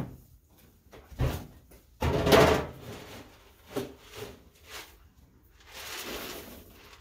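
Horse feed containers being handled while a feed bucket is made up: a low thump about a second in, a louder scraping rattle about two seconds in, a few sharp clicks, then about a second of steady rustling near the end.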